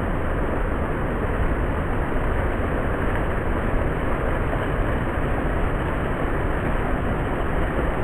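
A small waterfall pouring over rocks: a steady rushing of water that holds level throughout.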